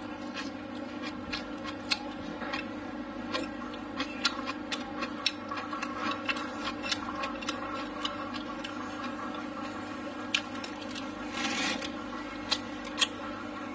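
Close-up eating sounds: a run of wet mouth clicks and smacks as rice, pork ribs and greens are chewed, with a short slurp a little past three-quarters of the way through. A steady low hum sits underneath.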